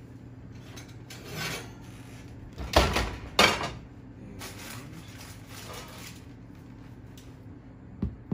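A stainless steel pot clanks twice onto the gas stove's grates, followed by softer rustling as the baked sourdough loaf is lifted out. Near the end, a knock on the loaf to check whether it sounds hollow, the sign that it is done.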